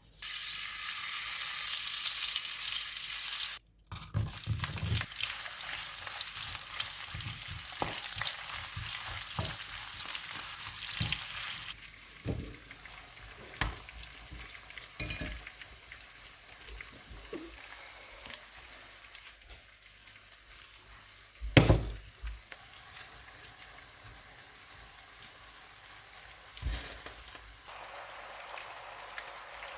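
Food sizzling in hot oil in a pan while a utensil stirs and knocks against it. The sizzle is loudest for the first few seconds, cuts off suddenly, then returns softer with frequent short knocks, growing quieter after about twelve seconds, with one sharp loud knock about two-thirds of the way through.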